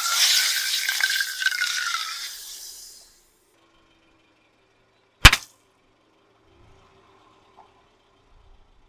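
A water-filled rubber hot-water bottle bursting under a car tyre: one sharp, loud pop about five seconds in. Before it, a loud hissing noise with a faint whistle in it fades away over the first three seconds.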